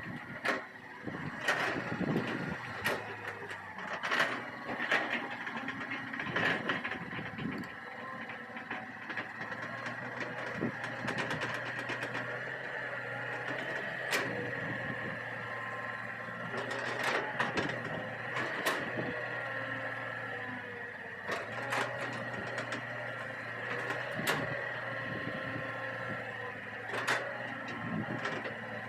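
Hitachi EX200 excavator running while levelling soil: a steady diesel engine with a high whine, and sharp knocks and clanks every second or two.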